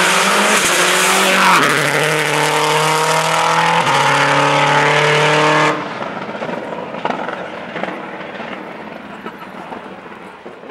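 Rally car engine running hard at high revs, its pitch stepping twice as it changes gear. About six seconds in, the sound drops off suddenly to a quieter engine noise that fades away.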